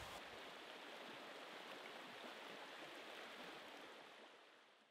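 Faint, steady rush of stream water running over stones, fading out near the end.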